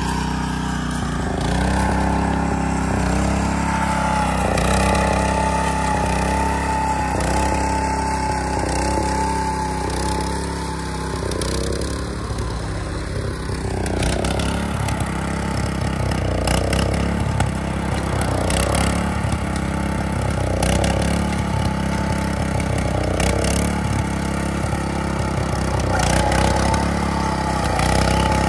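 Small engine of a walk-behind cultivator with a bean-seeding attachment (rotary tiller, ridger, vinyl mulcher and seeder) running steadily as it works a row of soil.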